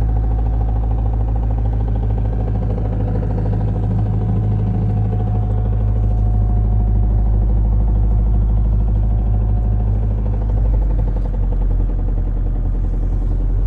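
Car's internal-combustion engine running steadily at low-to-mid revs, held around the speed where the owner hears a knock come in, from about 1,500 rpm.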